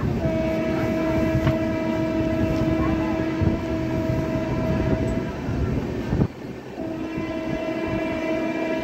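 Indian Railways locomotive horn sounding a long steady blast over the rumble of a moving train, breaking off about five seconds in and sounding again near the end. The loud rumble drops away suddenly about six seconds in.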